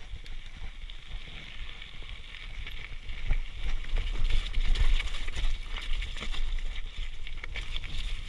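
Mountain bike rolling down a rough dirt and rock trail: tyres crunching over gravel and stone, with the bike rattling and clattering over the bumps and wind buffeting the microphone. The rattling gets louder and busier from about three seconds in.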